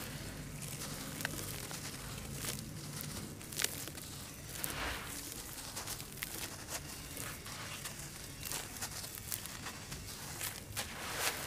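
Wet charcoal-ash chunks squeezed and crumbled by hand, giving gritty crunching and crackling with scattered sharp clicks as the crumbs drop into the watery slurry in the tub.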